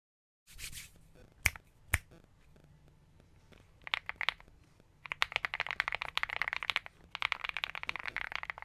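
Typing on a Monsgeek M1 mechanical keyboard fitted with Akko Cream Yellow V3 linear switches, a very creamy keystroke sound. After two sharp clicks and a few single keypresses, fast steady typing starts about five seconds in, with a brief pause near the end.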